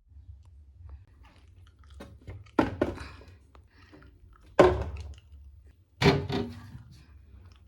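Containers and food items being set down and shuffled on fridge shelves: three louder thunks about two and a half, four and a half and six seconds in, with smaller rustles and clicks between, over a low steady hum.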